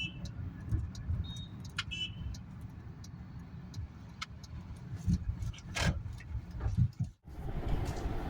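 Car in motion: a steady low road rumble with scattered light clicks and rattles. The sound drops out briefly near the end, then the rumble resumes.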